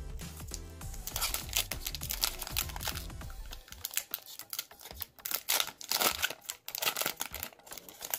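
Foil wrapper of a Pokémon trading-card booster pack crinkling and tearing as it is opened by hand: a dense run of quick crackles, loudest in the middle seconds. Background music plays under the first few seconds.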